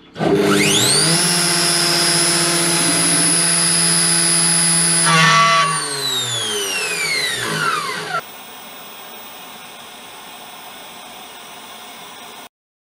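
CNC milling machine spindle spinning up with a rising whine, running at a steady high pitch for about five seconds, then winding down with a falling whine over two or three seconds. A fainter steady hum follows and cuts off suddenly near the end.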